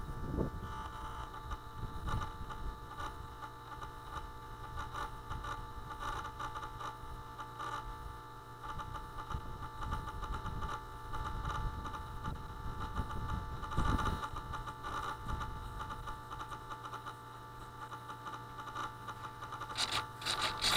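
Faint steady electrical hum and whine, several thin tones at once, picked up by the onboard camera of a powered-up RC plane at rest, with wind buffeting the microphone now and then. Near the end come a few sharp rustles and knocks as someone walks up through the grass.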